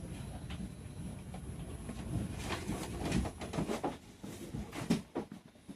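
Low rumble with irregular knocks and rattles inside an R142 subway car.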